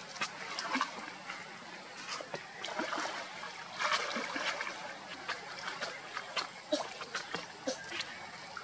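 Shallow water splashing and sloshing as young macaques swim and scuffle in it, with many short splashes and drips one after another.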